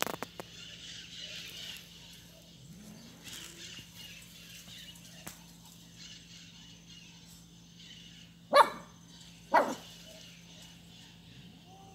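Shih Tzu giving two short, loud barks about a second apart, roughly two-thirds of the way through, while playing with a cat.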